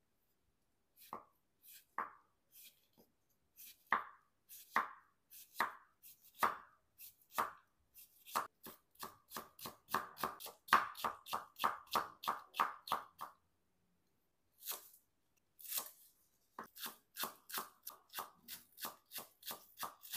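A cleaver cuts through cucumber on a wooden cutting board, each stroke a sharp knock. The strokes start slow and spaced, then speed up to about three a second. After a short pause comes quicker, finer chopping of green onion near the end.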